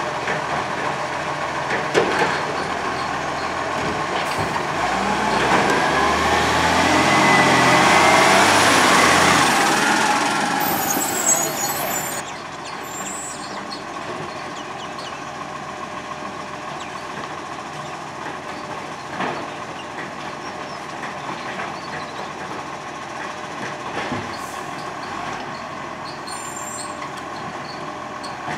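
Iveco side-loader garbage truck's diesel engine revving up for several seconds while its hydraulic side arm lifts and tips a bin, the pitch rising and falling, with a short hiss of air near the middle. It then drops to a steadier, quieter running.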